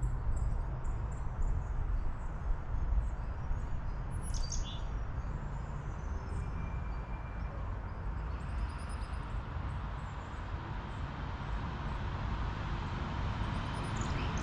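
Wind blowing across the microphone with a steady low rumble, and a few short bird chirps, the clearest about four seconds in.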